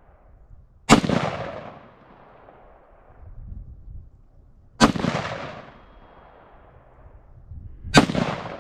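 Three slow, aimed rifle shots from a .308, about three to four seconds apart, each followed by a long fading echo, fired while checking the rifle's zero at 50 yards.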